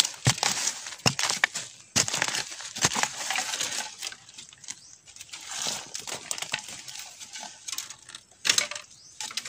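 A digging blade chopping into soil and bamboo roots around a bamboo shoot: a run of sharp chops in the first few seconds and two loud strikes near the end, with loose dirt and debris crumbling and scattering in between.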